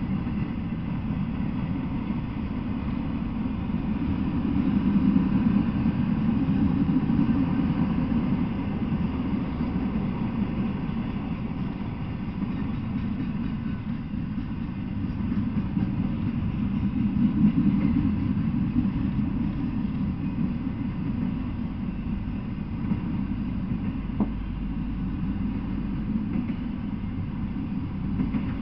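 Freight train of autorack cars rolling past: a steady low rumble of steel wheels on rails, swelling about five seconds in and again about seventeen seconds in.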